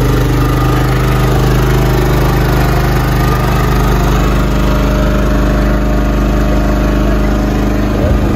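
An engine aboard a fishing boat running steadily at constant speed: an even, unbroken drone.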